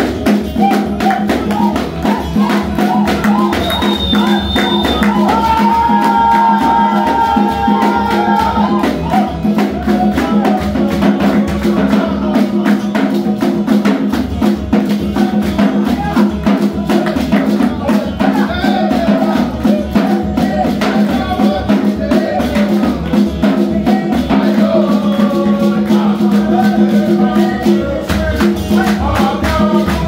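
Live worship music: a group singing with acoustic guitar and electronic keyboard, with hands clapping a steady beat.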